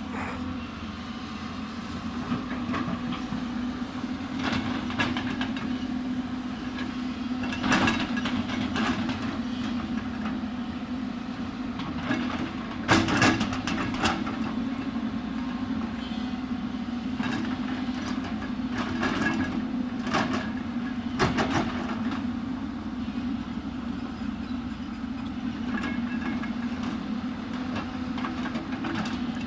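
Hyundai 220 crawler excavator's diesel engine running steadily, with repeated metal clanks and scrapes as it digs into a hillside. The loudest clank comes about halfway through.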